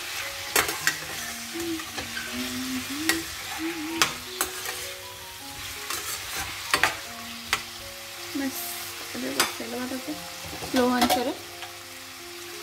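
Potato wedges frying in oil in a kadai, sizzling steadily, while a metal spatula stirs them with repeated sharp clicks and scrapes against the pan.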